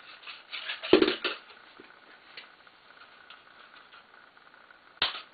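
Small craft items being handled and set down on a cloth-covered table: a cluster of clicks and knocks about a second in, the loudest a dull thud, and one sharp click near the end.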